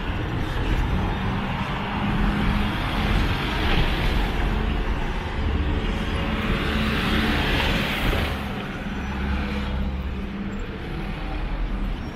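Road traffic on a city street: cars, vans and buses running with a steady low engine hum, and one vehicle passing louder and then fading about eight seconds in.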